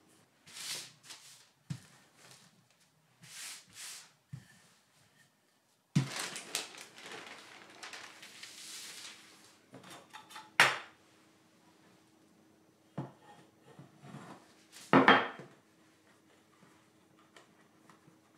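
Wooden rolling pin rolling over tart dough between sheets of parchment paper, several short swishing passes. Then a longer rustle of the parchment being handled and two sharp knocks of things set down on a wooden board.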